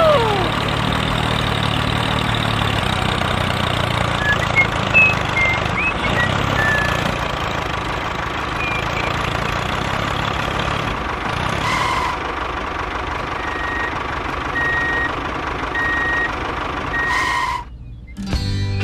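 Vehicle engine running steadily, with a series of short high beeps, about one a second, late on, like a reversing alarm.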